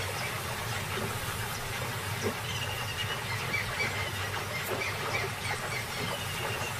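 Steady outdoor background hiss with a low hum, and faint short high chirps or whistles now and then.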